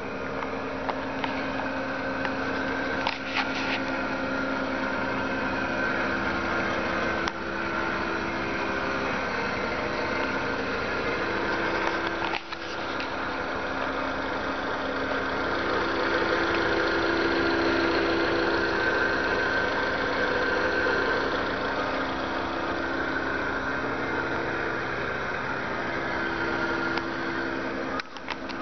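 Subaru Sambar van's 660 cc four-cylinder engine idling steadily, growing louder for a few seconds in the middle, with a few light clicks.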